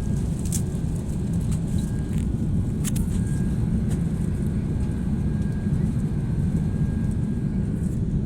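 Steady low rumble of a jet airliner's engines and airflow heard inside the passenger cabin, with a faint steady whine and a few light clicks.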